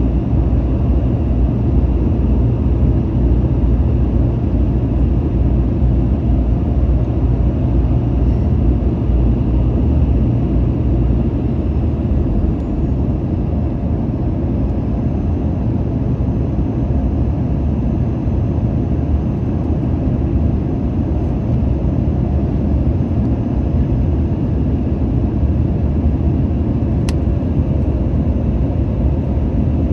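Steady low roar of a Boeing 737-900ER cabin in flight: airflow and CFM56-7B turbofan engine noise heard from inside the cabin. A faint high thin whine dips slightly and then holds about a third of the way through, and a single sharp tick sounds near the end.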